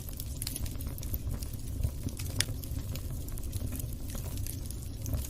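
Wood fire burning in a fireplace: irregular sharp pops and crackles over a steady low rumble of the flames, with the loudest pops about two seconds in.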